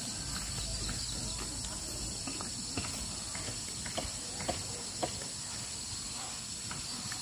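Insects chirring steadily in forest, a constant high-pitched drone, with a few short light clicks scattered through it.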